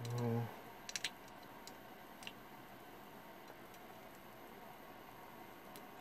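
A short low buzz lasting about half a second, then two or three sharp clicks about a second in and a few fainter ticks, as wire leads are handled at a car-audio capacitor's terminals.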